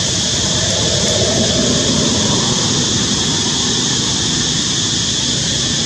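Steady, high-pitched insect drone of cicadas that does not change, over a low, uneven noise.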